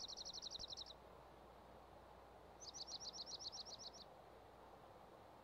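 A small songbird singing a rapid, high trill of quick down-slurred notes. The trill ends about a second in, and a second trill follows midway and lasts about a second and a half, over a faint steady background hiss.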